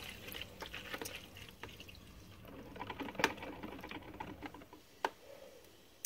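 Faint trickle of water being poured into a drip coffee maker's reservoir, with a couple of light clicks.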